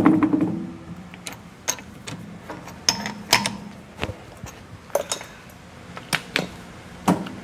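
Chuck key tightening a three-jaw lathe chuck onto a steel bar, with a short metallic rasp at the start. It is followed by a scatter of separate sharp metal clicks and clanks, some ringing briefly, as the key and the clamped work are handled.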